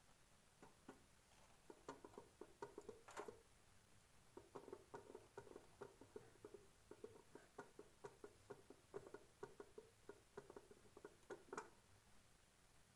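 Faint, irregular knocking of a wooden rolling pin on a round board as chapati dough is rolled out, a few knocks a second with a brief lull about four seconds in, and a couple of sharper clicks.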